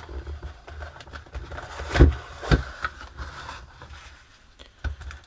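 Plain cardboard box being opened and its contents handled: scraping and rustling of cardboard with a few knocks, the loudest about two seconds in.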